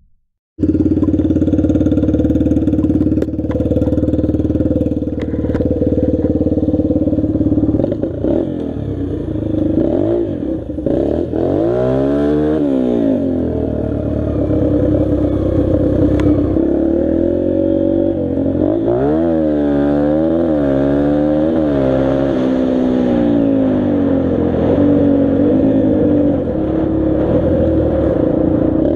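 Dirt bike engine running while being ridden, its pitch rising and falling again and again as the throttle is opened and closed, with the biggest swings in revs about ten seconds in and again near the twenty-second mark.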